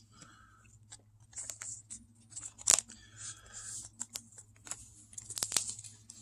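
Pokémon trading cards being handled and slid into plastic card sleeves: soft sliding and rustling with a few sharp clicks and taps, the loudest about two and a half seconds in and another cluster at about five and a half seconds.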